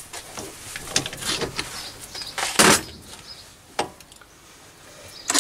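Hands working a mini lathe's indexing pulley and pin to turn the workpiece to the next drilling position. Irregular clicks and knocks, with one short, louder scraping burst about halfway through.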